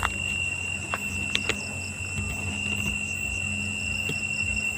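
Night insects, such as crickets, giving a steady high-pitched drone on one unbroken tone. A few sharp clicks fall near the start, at about a second and a half, and again near the end.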